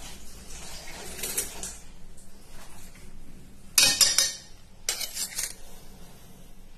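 A steel spoon clinking and knocking against a stainless steel bowl as cornflour is tipped from it onto marinated chicken. The loudest run of sharp clinks comes about four seconds in, with a few more just after.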